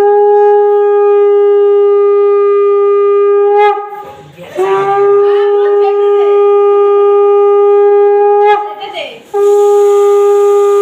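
Conch shell (shankha) blown in three long, steady blasts with short breaths between. It is the ritual conch sounded as the phonta mark is put on the brother's forehead.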